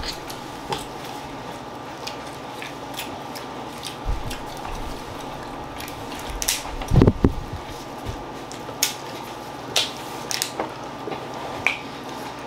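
Crab-leg shells snapping and cracking as gloved hands break them apart, with scattered crunching and chewing sounds, the loudest break about seven seconds in, over a steady faint hum.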